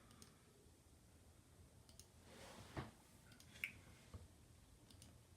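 Near silence with a few faint computer mouse clicks spaced irregularly, and a soft rustle ending in a slightly louder click near the middle.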